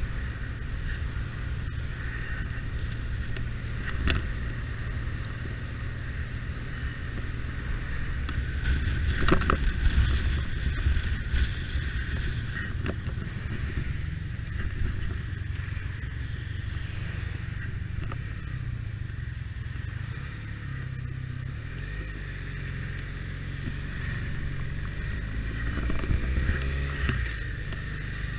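Motorcycle running on the road, a steady low rumble with a few sharp knocks about four and ten seconds in. Near the end the engine note rises as it picks up speed.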